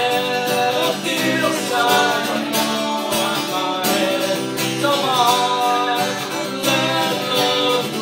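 Acoustic guitar strummed while a man sings into a microphone, holding and sliding between notes.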